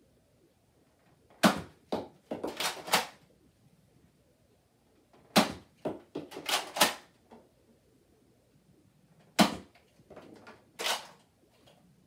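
A Nerf Fortnite SP-L Ridley spring blaster being fired and re-primed three times, about four seconds apart. Each round is a sharp snap followed by a quick run of plastic clacks from the priming handle.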